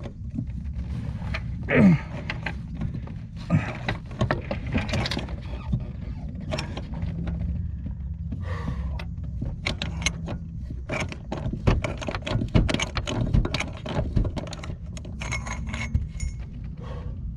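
Hand ratchet and loose metal clicking and rattling in irregular bursts while a door hinge bolt is worked inside the door-hinge pillar, busiest in the second half. A short grunt about two seconds in.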